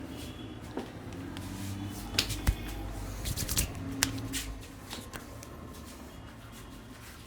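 Hands slapping, tapping and snapping on skin during a head and body massage: a scattered run of sharp slaps, a few coming in quick succession around the middle, over a steady low rumble.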